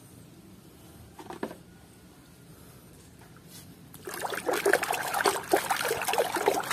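A hand swishing and splashing water in a plastic tub while washing a muddy toy. It is fairly quiet at first, with one brief splash, and busy, irregular sloshing starts about four seconds in.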